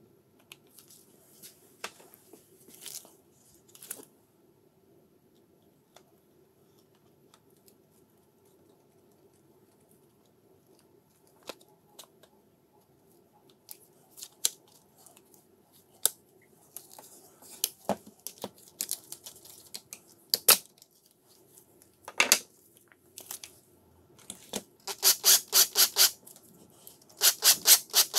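Hands working on a DeWalt hammer drill: scattered clicks, taps and rubs of its plastic and metal parts, turning in the last few seconds into runs of rapid clicking.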